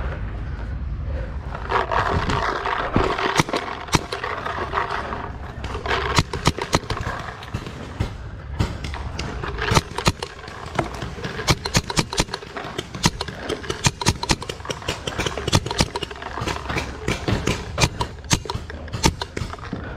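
Many irregular sharp pops and knocks in quick succession from about six seconds in, over a rough rustling, scraping noise that is loudest in the first few seconds.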